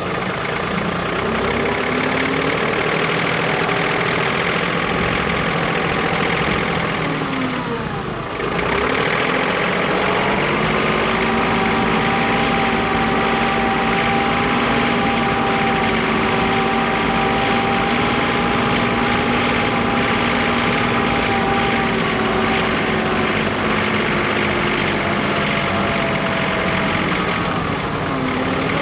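John Deere 3039R compact tractor's three-cylinder diesel engine running steadily. About eight seconds in its speed dips and then comes back up, and it holds steady after that.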